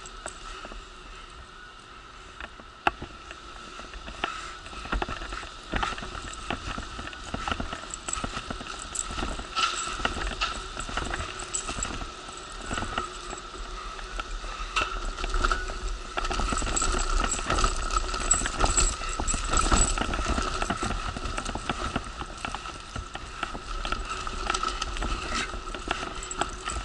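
Wheelchair rolling over pavement, its wheels and frame rattling with many small clicks and knocks, over a steady high whine; the rattling grows louder from about two-thirds of the way through.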